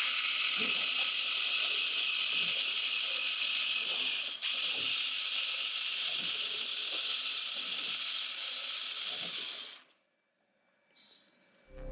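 A steady, loud hiss with a short break about four and a half seconds in; it cuts off suddenly near the end.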